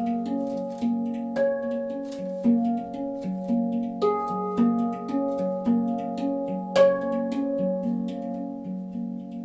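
Manik handpan (steel sound sculpture) in F#2 Nordlys tuning, played with the fingers: a steady rhythm of ringing low notes with brighter higher notes struck over them. Sharper accented strikes come at about a second and a half, four and seven seconds in.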